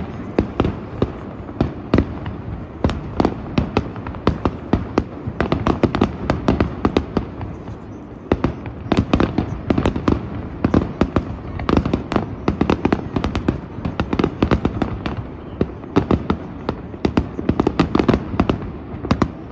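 Aerial fireworks shells bursting in a dense barrage, many sharp bangs in quick succession, easing briefly about eight seconds in before picking up again.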